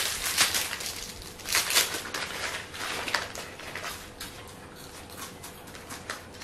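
Plastic chocolate-bar wrappers crinkling and rustling as they are torn and peeled open, with sharp crackles for the first few seconds, then only a few softer rustles.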